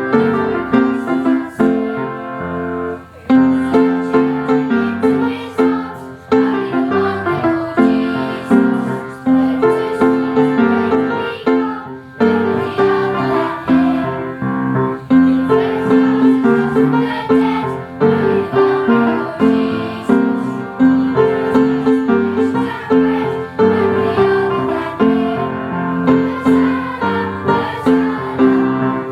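Piano music playing throughout, a run of clearly separate notes one after another.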